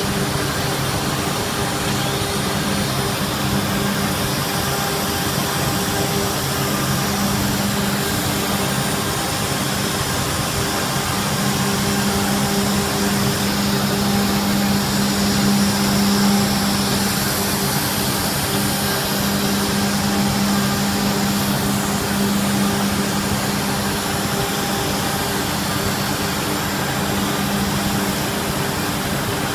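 A 4-axis CNC router running as its spindle head swings and tilts over a curved panel: a steady machine hum with a held low tone, swelling a little around the middle.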